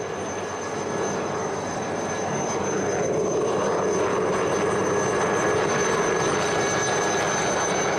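Alouette III helicopter's turbine and rotor running as it hovers low, a steady noise that grows louder over the first few seconds and then holds.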